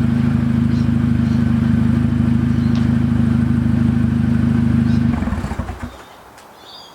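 VW Golf Mk6 R's turbocharged 2.0-litre four-cylinder idling steadily, then shutting off about five seconds in and running down over about a second.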